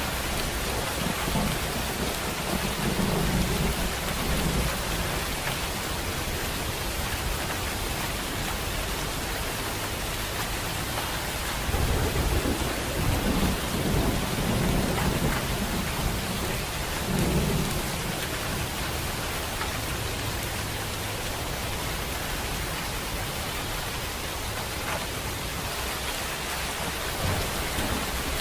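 Steady rain with rolling thunder. Low rumbles swell about three seconds in, and again in a longer roll from about twelve to eighteen seconds, over the even hiss of the rain.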